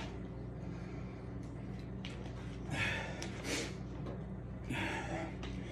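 A man breathing hard between sets of burpees, with two loud breaths, one about halfway through and one near the end, over a steady low hum.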